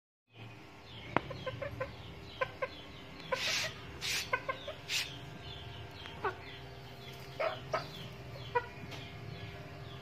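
Chickens clucking in short runs of two to four quick notes, with a few brief rustles in between.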